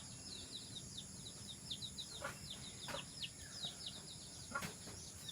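Small birds chirping in a continuous flurry of short, high, falling chirps, several a second, with a few faint knocks.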